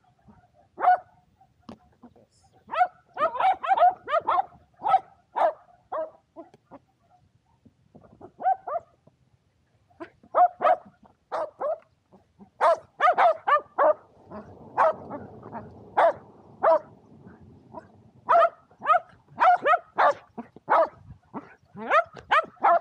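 Shetland sheepdogs barking excitedly in play, sharp short barks in quick runs with brief pauses between, demanding the thrown disc. A stretch of rough rustling noise sits under the barks midway.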